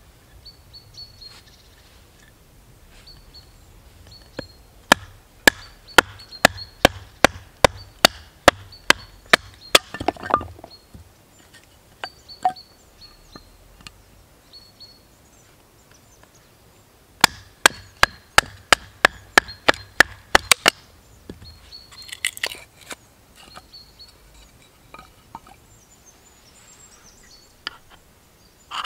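A bushcraft knife being driven down into the top of a short round log to split it for kindling: two runs of quick, sharp wooden knocks, about two or three a second, followed by some cracking and rustle of the wood.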